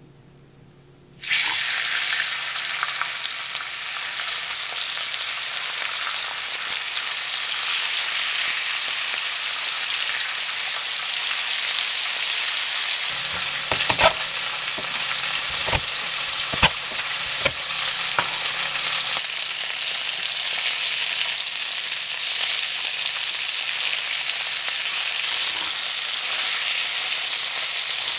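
Lamb steaks sizzling in hot olive oil in a frying pan; the sizzle starts suddenly about a second in as the meat goes into the pan and then keeps up evenly. Around the middle come a few sharp knocks as garlic cloves are crushed under a knife blade on a wooden cutting board.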